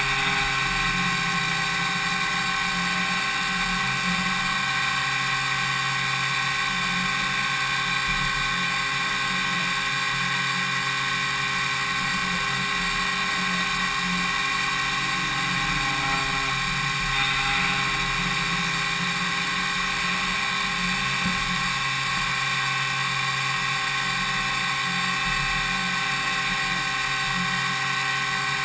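DMU 70V 5-axis CNC machining centre milling impeller blades: a steady whine of many fixed high tones from the spindle and cutter, over a constant hum and cutting noise, with no change in pace.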